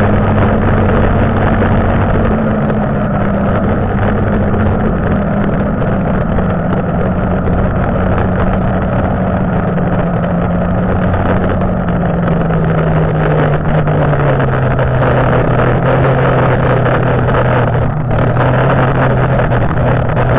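A 1992 Arctic Cat Panther two-up snowmobile's two-stroke engine running steadily at speed, its pitch easing down over the second half as the sled slows. Under the engine runs a steady rushing noise of track and wind.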